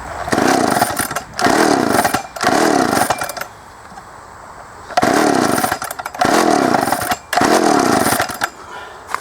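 Homelite 350 two-stroke chainsaw being pull-started: six hard pulls on the recoil starter cord, three and then three more after a short pause, each a rising-then-falling whirr as the engine turns over. It never catches; the owner suspects the carburetor.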